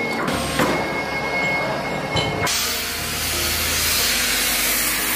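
Pattern plotter running as it draws on paper: a steady thin whine with a couple of clicks. About two and a half seconds in it gives way to a steam iron hissing steadily, pressed over cotton cloth to pre-shrink it.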